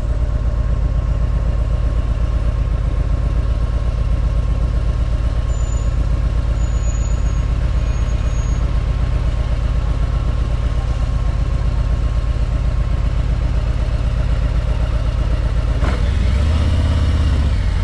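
Car engine running and road noise while driving through city streets, heard from inside the car as a steady low drone. A few brief faint high squeaks come about six to eight seconds in, and near the end the low engine sound swells louder.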